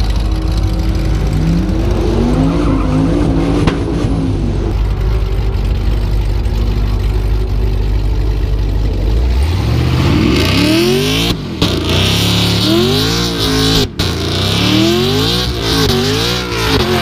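Chevrolet Camaro's engine running, then revving hard in repeated rising and falling sweeps during a burnout. From about halfway through, the spinning tires hiss and squeal over it.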